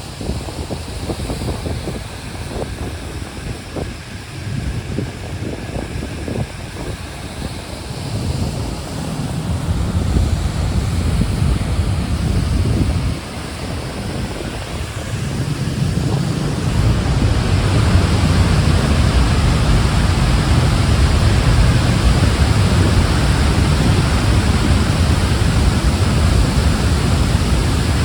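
Water pouring over a dam's spillway as a waterfall, heard from the passage behind the falling curtain: a steady, loud rush with wind rumbling on the microphone. The rush swells louder and fuller a little past halfway through.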